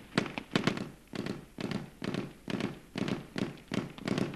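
Kord 12.7 mm heavy machine gun firing tracer rounds: a steady string of sharp cracks, about two to three a second, many of them followed closely by a second crack.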